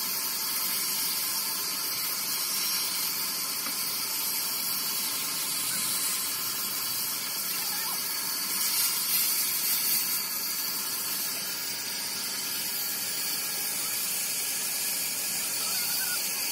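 Band saw running and cutting wood as a wooden stick is turned against the blade: a steady, high-pitched hissing whine.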